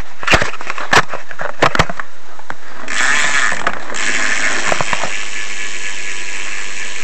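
BMX rear hub ratcheting as the back wheel spins freely: a few sharp knocks at first, then from about three seconds in a fast, steady buzz of pawl clicks that is pretty loud.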